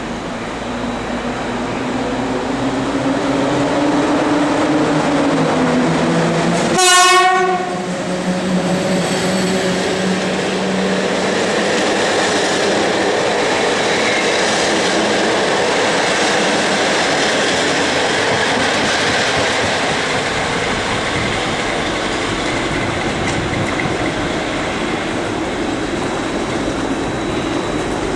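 EU07 electric locomotive hauling a passenger train out of the station, with a rising motor hum as it starts to gather speed. A short horn blast comes about seven seconds in, then the steady rumble and clatter of the coaches' wheels rolling past.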